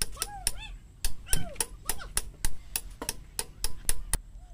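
Hammer striking steel at the front wheel hub of a Mahindra Novo 655 DI four-wheel-drive tractor, driving the outer wheel bearing into its seat. The blows are quick and even, about four or five a second, with a short pause near the start, and stop shortly before the end.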